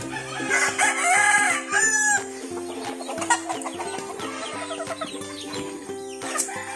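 Gamefowl rooster crowing once in the first two seconds, with chickens clucking, over background music with a steady repeating pattern of low notes.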